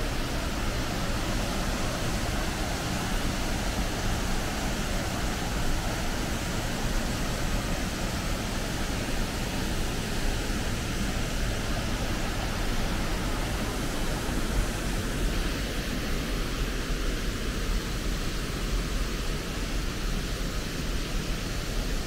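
Black Linn Waterfall on the River Braan crashing through a rocky gorge: a steady, even rush of falling white water.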